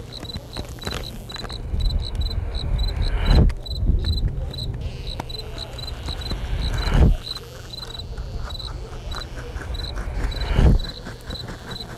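Ambient sound-art piece: a high, regular insect-like chirp about three times a second over a low rumble. Three times the sound swells up and then cuts off sharply, about every three and a half seconds.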